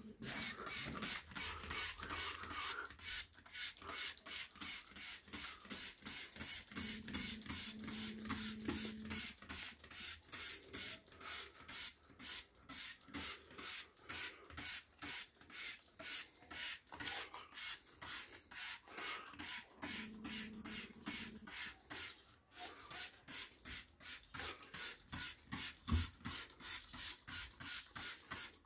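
Hand trigger spray bottle squirting liquid onto a plastered wall in a fast, even series of short sprays, about two to three a second. One low thump near the end.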